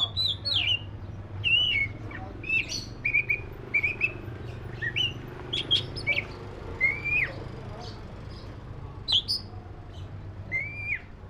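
Oriental magpie-robin (black-breasted kacer) singing: a varied string of short whistled notes, chips and sweeping slurs. A steady low hum runs underneath.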